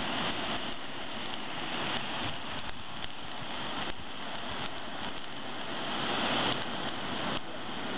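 Firework lances on a lancework set piece burning with a steady hiss, with a few small pops.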